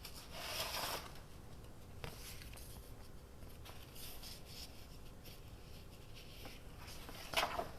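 Paper being handled and rubbed on a desk: a brief louder rustle about half a second in, then quiet light scraping and taps, with another short rustle near the end.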